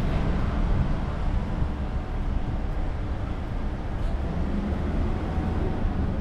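Steady low rumble of a car driving, engine and road noise with no distinct events.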